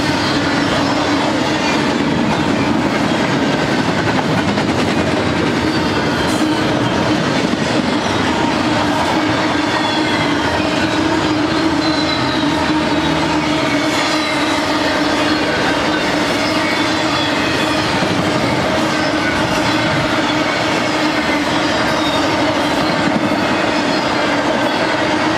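Intermodal freight cars loaded with double-stacked containers rolling past close by. A loud, steady rumble of steel wheels on rail with a constant low hum, and faint high whines that slide slowly in pitch.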